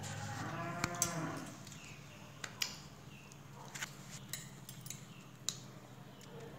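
A cow moos once, a drawn-out call over the first second and a half. Through the rest, a steel spoon clinks about seven times against a steel cup as sugar syrup is spooned onto a cake layer.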